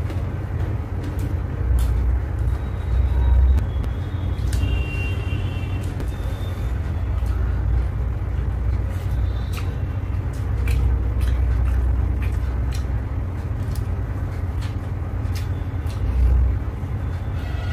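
Chewing and mouth smacks with soft clicks from eating by hand, over a steady low rumble that swells about two, eleven and sixteen seconds in.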